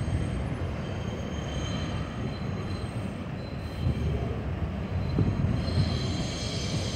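R142 subway train running on an elevated steel structure: a steady low rumble with thin high-pitched wheel squeal that grows stronger about five and a half seconds in.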